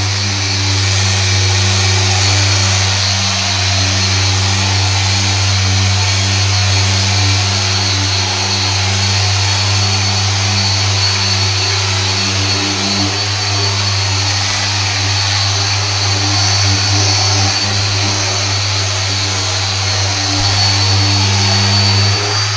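Electric paint polisher running steadily as it works polish into car paint: a constant hum with a thin, high whine above it.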